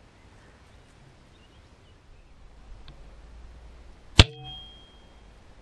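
A single shot from a .22 Sandwell Field Sports Imp spring-piston air rifle about four seconds in: one sharp crack followed by a brief ringing.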